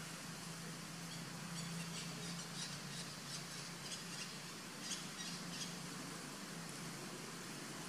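Forest ambience: a run of short, high-pitched chirps from about one and a half to six seconds in, over a steady low hum.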